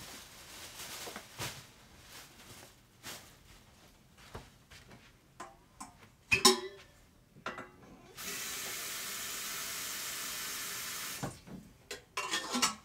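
Kitchen tap running steadily for about three seconds, starting about eight seconds in, as a metal kettle is filled at the sink. Before it come scattered knocks and rustles of groceries being unpacked onto the counter, with one sharp knock about six seconds in. More clatter follows near the end.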